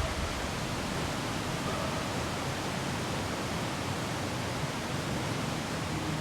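Steady rushing of river water, an even hiss with no separate splashes or knocks.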